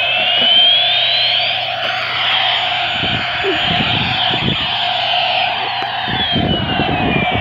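Battery-powered bump-and-go toy helicopter running: its electronic siren tone glides up in pitch, holds high for about three seconds, then glides down, over the steady whir of the toy. From about three seconds in, clattering knocks as it rolls and bumps about.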